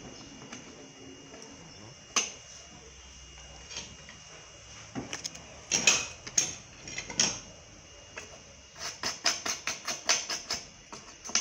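A few scattered knocks and clicks as a phone circuit board and tools are handled and set down on the bench. Then a small brush scrubs the board in quick strokes, about five a second, over the last few seconds.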